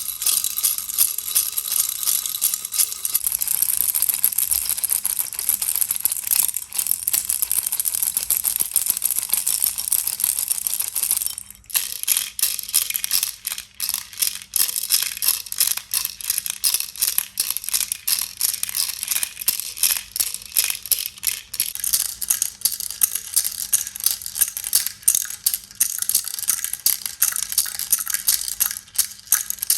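Plastic baby rattle shaken continuously, a dense high-pitched clatter of beads inside it. It stops briefly about eleven seconds in, then starts again in quicker, more separate shakes.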